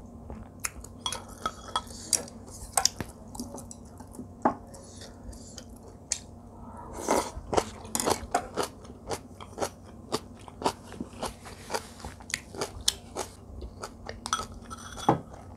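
Person chewing and crunching mouthfuls of a Korean home meal of rice in clam soup with side dishes. Irregular sharp clicks of utensils against dishes come throughout, and are most frequent about halfway through.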